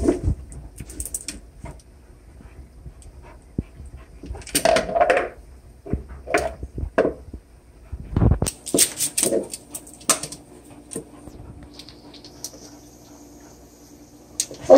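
Beagle whimpering a few times, amid scattered clicks and taps from a plastic food bowl on a tile floor and kibble in a plastic scoop.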